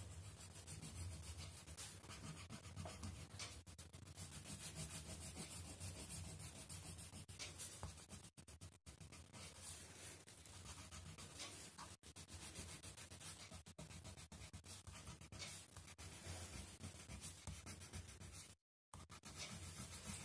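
Faint scratching of a plastic wax crayon rubbed on a colouring-book page in many short, quick strokes as an area is filled in with colour. The sound cuts out for a moment near the end.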